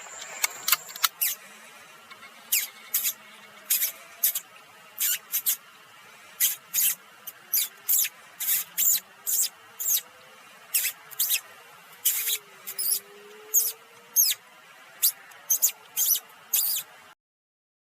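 A long run of short, high-pitched squeaks, about two a second at uneven spacing, over a faint background, stopping abruptly shortly before the end.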